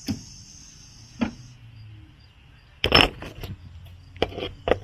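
A steady high hiss that stops about a second and a half in, and several separate sharp knocks and clicks, the loudest a short cluster about three seconds in.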